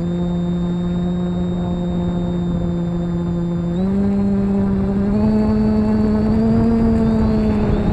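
A small motor running with a steady whine that steps up in pitch about four seconds in, then creeps slowly higher.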